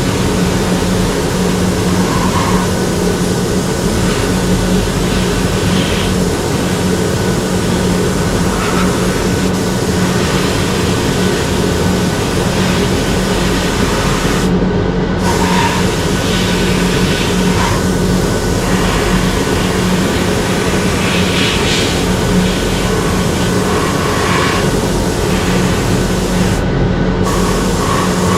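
Compressed-air spray gun hissing as Cerakote is sprayed on in light passes, over a steady machine hum; the hiss cuts out briefly about halfway through and again near the end.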